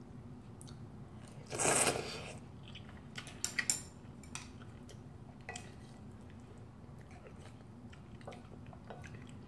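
A person slurping instant ramen noodles: one loud slurp about a second and a half in, then quiet chewing. A few sharp clicks of chopsticks against the bowl and utensils follow.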